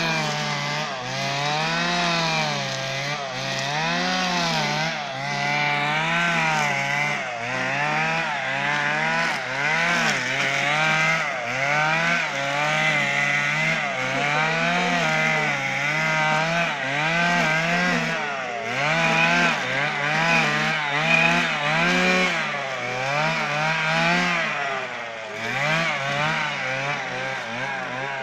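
Petrol brush cutter running hard while cutting through tall grass and weeds, its engine pitch rising and falling over and over as the head swings through the growth and takes the load.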